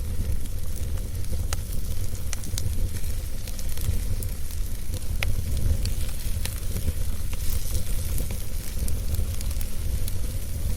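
Wood fire burning in a fireplace: a steady low rumble and hiss of flames with scattered sharp crackles and pops at irregular intervals.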